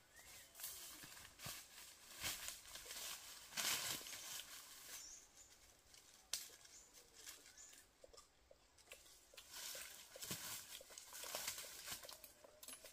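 Irregular rustling with scattered light clicks and knocks, loudest a little before four seconds in.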